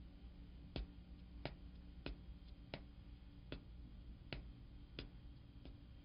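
Faint ticking, one sharp tick roughly every 0.7 s, over a low steady hum.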